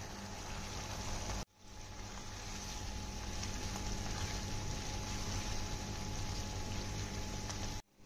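Masala gravy with kababs cooking in a pan, a steady sizzling and simmering hiss with a faint low hum under it. The sound breaks off for a moment about a second and a half in and again near the end.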